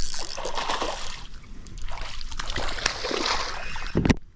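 Water splashing and sloshing at the surface beside the boat, with a short low thump near the end.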